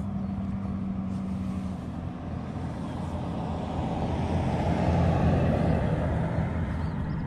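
A pickup truck driving past on a paved highway: its tyre and engine noise builds as it approaches, is loudest about five seconds in, then fades as it goes by.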